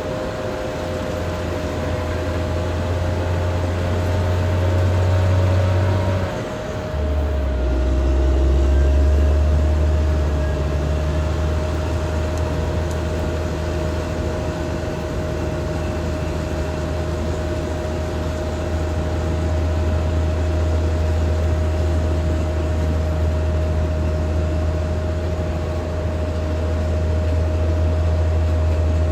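Caterpillar D6R XL bulldozer's diesel engine running under load with a deep, steady rumble and a steady whine over it; the engine dips briefly about six seconds in, then picks up again and holds.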